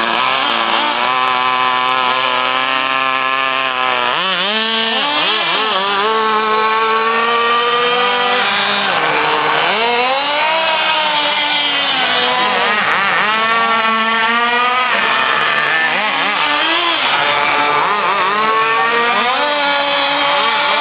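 Small two-stroke engine of a fuel-powered RC car, high-pitched and buzzing. It runs at a steady pitch for the first few seconds, then revs up and down over and over as the car is driven.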